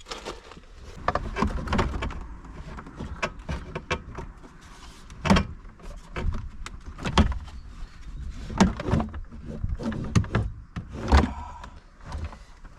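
Irregular knocks, clicks and rattles of car interior trim and dashboard parts being handled and worked loose, with several heavier thumps.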